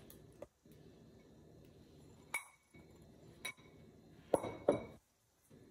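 Spatula and blender jar clinking against a stainless steel mixing bowl as banana purée is scraped in: a few sharp clinks with a short ring, the loudest two close together near the end.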